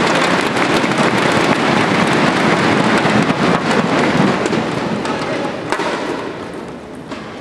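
Crowd cheering and beating inflatable thunderstick noisemakers together to celebrate a won point: a dense clatter of many quick claps that dies down over the last two seconds.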